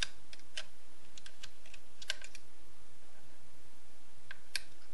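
Light, irregular metallic clicks and taps as a thin steel sealing plate is handled and seated onto a chainsaw's chain brake mechanism.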